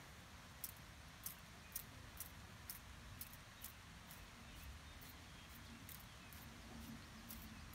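Trigger spray bottle misting sugar water onto a package of honey bees: short hissing squirts, about two a second.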